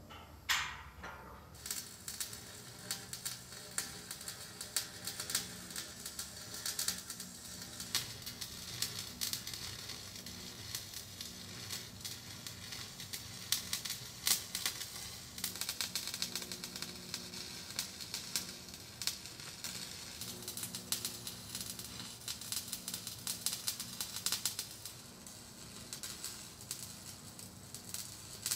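Stick welder arc crackling and sizzling steadily as a bead is run overhead on the underside of a steel frame. It starts about a second and a half in, after a few short sharp cracks.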